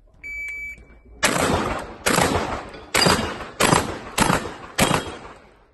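Shot timer beeps once, just under a second long, then a shotgun fires six shots in quick succession, a little under a second apart.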